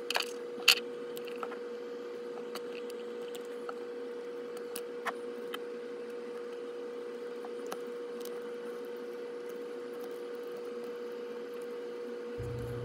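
Small scattered clicks and taps of the plastic and metal parts of an HO scale model locomotive truck being handled and fitted together by hand, the sharpest two about half a second apart near the start, over a steady background hum.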